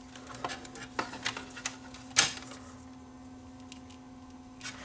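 Small clicks and light handling noise from electrical wire leads being twisted together by hand, with the sharpest click about two seconds in, over a faint steady hum.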